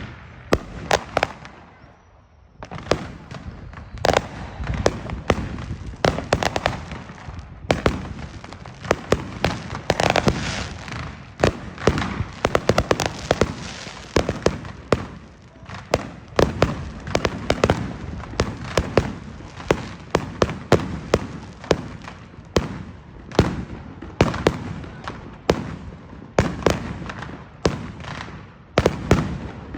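Fireworks going off in rapid succession: a steady barrage of sharp bangs and crackles, many close together and overlapping, with a brief lull about two seconds in.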